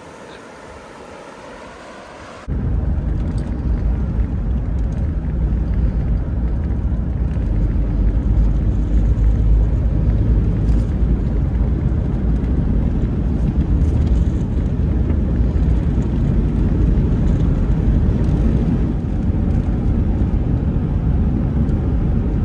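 Shallow river water running over rocks, faint and brief, then a sudden cut about two and a half seconds in to a van driving on a paved road: a steady low rumble of engine and tyres heard from inside the cab.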